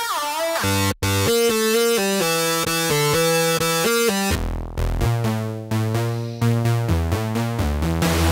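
Synthesizer lead layers of an EDM track heard one at a time, each playing the same melody. First comes a bright synth of short repeated notes. About four seconds in it switches abruptly to a deeper, bass-heavy synth layer.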